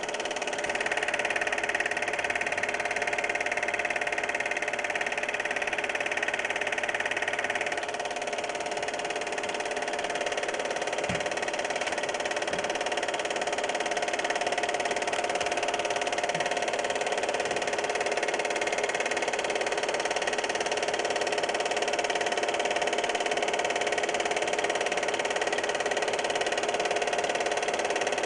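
Cine film projector running: a steady mechanical whir with a constant hum, a higher whine dropping away about eight seconds in.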